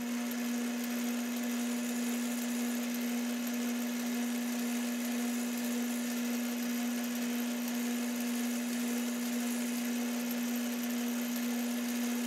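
Metal lathe running at steady speed, its chuck spinning a plastic Pinewood Derby wheel on a mandrel as the wheel is turned true: an even hum with one strong steady low tone under a constant whirr.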